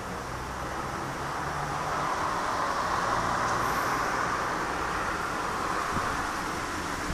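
Distant vehicle noise: an even rushing sound that swells over a couple of seconds, holds, then eases.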